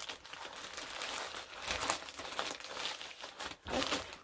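Brown kraft-paper bags holding wool roving crinkling and rustling as they are handled and rummaged through.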